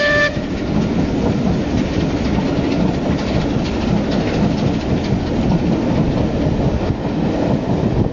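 Coaches of a steam-hauled train rolling past, a steady rumble with the clickety-clack of wheels over rail joints. A steam locomotive's chord whistle, sounding several notes at once, cuts off sharply just at the start.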